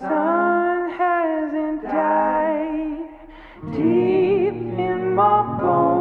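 Background music: a slow song with long, held sung notes.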